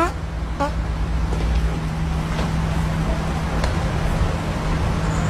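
Electric fan running close to the microphone: a steady whir with a constant low motor hum, and a few faint ticks.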